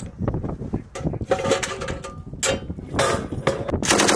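Scattered sharp bangs, then a vehicle-mounted heavy machine gun opens fire near the end in a loud, fast, even burst.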